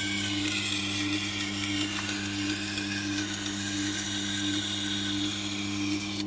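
Tormek T8 wet grinder running with a steady electric hum while a steel chef knife's edge is drawn across its turning SG250 grinding stone, giving a continuous scraping hiss. The scraping stops at the very end as the blade comes off the stone, and the motor hum carries on.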